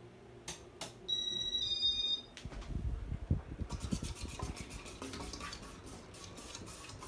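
Two button clicks and a short electronic beep, followed by several dull thumps and crackly rustling of handling.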